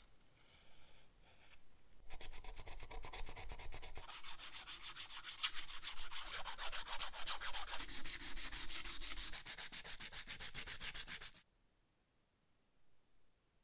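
Abrasive rubbing by hand: quick, even back-and-forth strokes, about five a second, starting about two seconds in, loudest in the middle and stopping abruptly about eleven seconds in.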